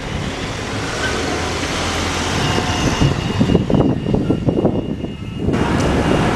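Double-decker bus driving past close by and pulling away, its engine and road noise running steadily, with gusts of wind buffeting the microphone in the middle. Near the end the sound changes abruptly to a steadier low engine hum.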